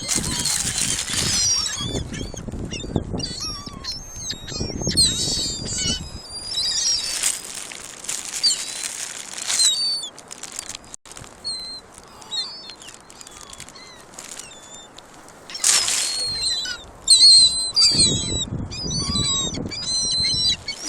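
A flock of gulls calling over and over in short, high, bending squeals, busiest near the end, with bursts of rushing noise in between.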